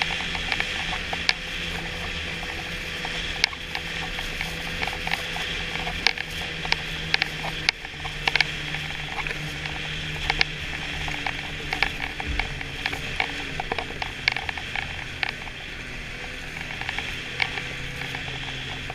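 Snowmobile running at a steady trail speed, heard from the sled itself: a steady engine drone under a hiss of rushing noise, with frequent irregular sharp clicks and rattles.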